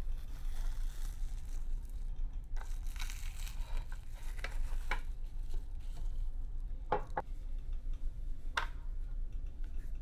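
Clear plastic cling film crinkling and rustling as it is peeled off a plate and crumpled by hand, followed by a couple of sharp light knocks. A steady low hum runs underneath.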